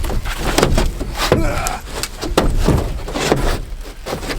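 Irregular clunks, knocks and rattles of a dirt bike being handled and loaded onto a pickup truck, with a short sliding scrape about a second and a half in.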